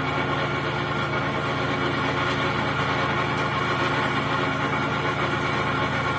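Exmark zero-turn lawn mower running at a steady speed, with a rattle from under the cutting deck whose cause the owner does not know.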